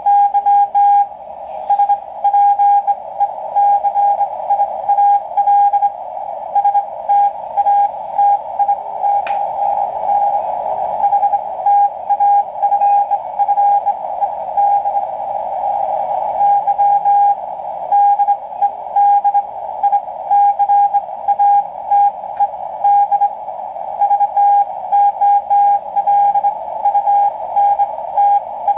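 Shortwave Morse code (CW) from a Point Reyes maritime coast station on 12993 kHz, received on an Icom IC-R8500 in CW mode. It is a keyed tone of about 800 Hz going on and off in dots and dashes over a narrow band of static hiss. The code is hand-sent with a straight key by an operator, so the timing is not perfectly even.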